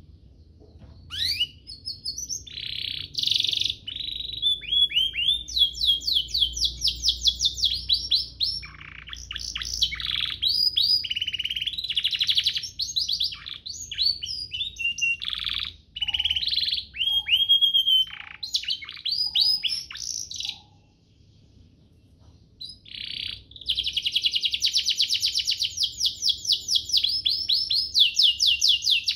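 Domestic canary singing a long, varied song of fast trills and rapid rolling note series. It breaks off for about two seconds past the middle, then resumes with a long fast trill.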